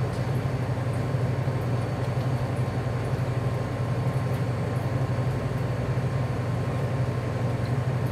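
Steady low hum of kitchen machinery, with faint thin whines above it and no change in level.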